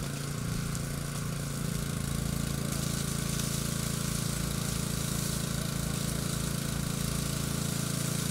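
An engine running steadily with a low hum. From about two and a half seconds in, a hissing stream of water is sprayed onto a baby elephant and splashes off it.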